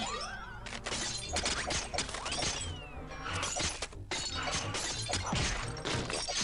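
Cartoon sound effects of icicles falling and shattering: a rapid run of glassy crashes and cracks, over cartoon background music with a few sliding pitches.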